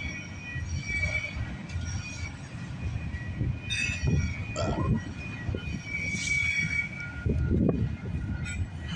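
Freight train's cars rolling past over the rails, a steady low rumble with steel wheels squealing in high held tones that flare louder about four and six seconds in.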